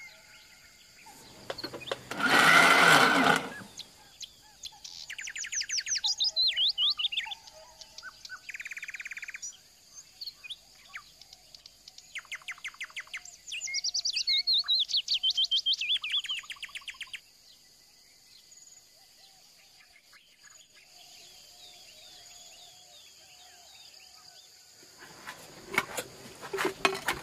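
Songbirds singing in rapid trills of fast repeated notes, loudest through the middle stretch, over a steady faint high-pitched insect drone. A loud rushing burst about a second and a half long comes about two seconds in.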